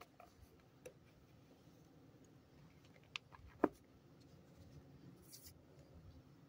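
Quiet handling of a leatherette pen box and an ebonite fountain pen on a tabletop: a few light clicks and taps, with a sharper knock about three and a half seconds in.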